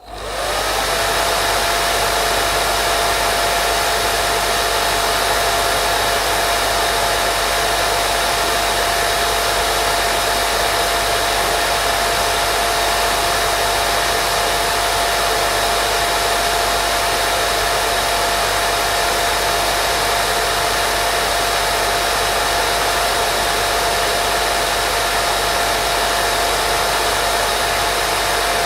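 Steady white noise for baby sleep: an even hiss with a constant whine running through it, like a hair dryer. It fades in and settles during the first second, then holds unchanged.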